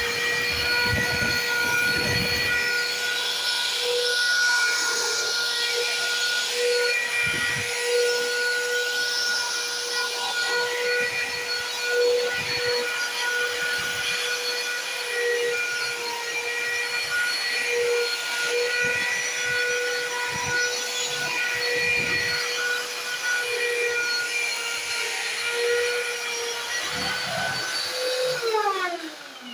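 Electric long-handled drywall sander with a dust-extraction hose running at a steady high whine while sanding a wall, with scattered low knocks. Near the end it is switched off and its pitch falls as the disc spins down.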